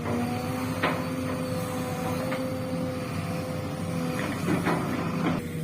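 Long-arm Sumitomo SH210 excavator's engine and hydraulics running with a steady whine, with a few knocks and scrapes from the working gear, the loudest about a second in and again near the end.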